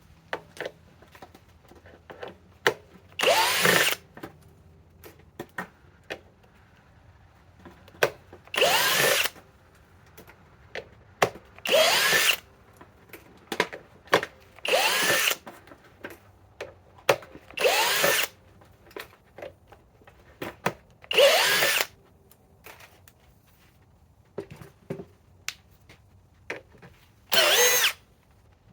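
Compact cordless drill backing out sheet metal screws: seven short bursts of under a second each, the motor pitch sagging and rising as each screw turns out, with small clicks between.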